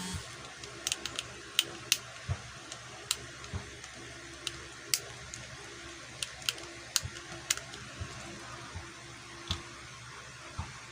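QiYi X-Man Tornado V2 speed cube being turned by hand: irregular sharp clicks of its layers snapping into place, roughly two a second.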